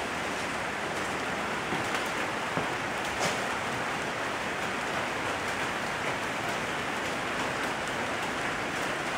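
Steady rain hiss with a few sharper drop ticks now and then.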